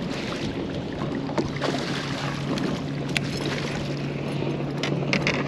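Steady low hum of a boat motor over wind and water noise, with a few light clicks and knocks.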